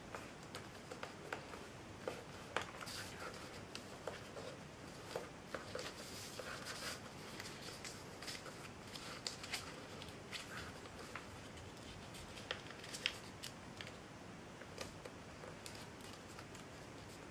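A sheet of printer paper being folded by hand: irregular rustling and crackling, broken by short sharp clicks as the folds are pressed and creased flat.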